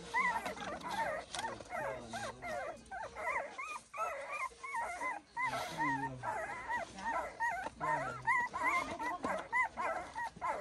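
Puppies whimpering and squealing: a dense run of short, high-pitched whines, several a second and overlapping, with a few lower falling whines among them.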